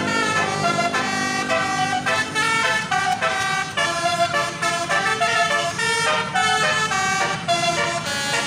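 Tour bus's telolet basuri musical horn playing a melody, a rapid run of stepping horn notes.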